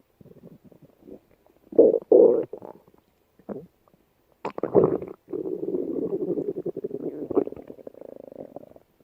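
A person's stomach growling: a few short gurgles, louder ones about two seconds in, then a long drawn-out rumble from about five seconds in until the end.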